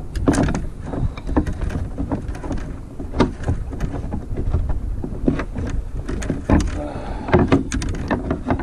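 Irregular knocks, taps and thumps from handling a freshly landed striped bass in a kayak, around the moment it is dispatched with a fish bat, over a steady rumble of wind on the microphone.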